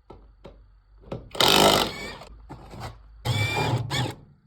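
A power tool run in two short bursts, each under a second, with a few small clicks before them: taking apart a car's wheel hub to replace a worn hub bearing.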